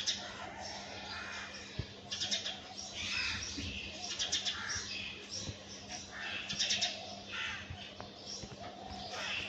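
Several birds chirping and calling over one another in quick, repeated bursts.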